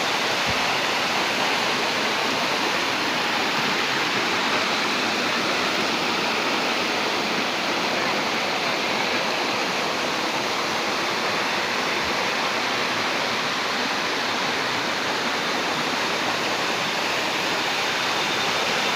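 Ton Prai waterfall running with a low dry-season flow: a steady, even rush of falling water.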